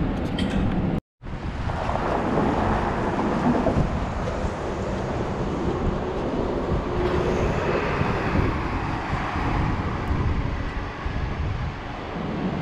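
Wind buffeting the microphone: a fluctuating low rumble, broken by a brief cut to silence about a second in.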